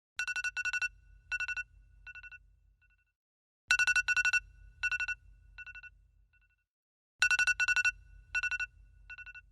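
Mobile phone ringtone: a bell-like trilling pattern of a few quick rings, each fading as it echoes, played three times about three and a half seconds apart. A low buzz runs under each ring, as of the phone vibrating at the same time.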